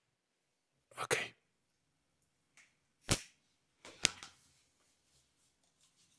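Bathroom handling sounds while getting ready to brush teeth: a short clatter about a second in, then two sharp clicks near three and four seconds in. After them comes faint scrubbing of a toothbrush on teeth.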